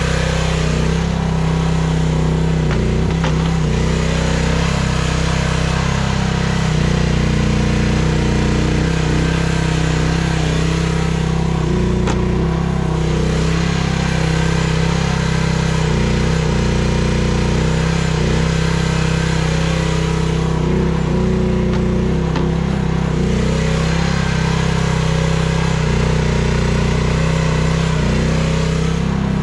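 Chinese mini excavator's small engine running continuously under hydraulic load while digging, its note shifting a little as the controls are worked.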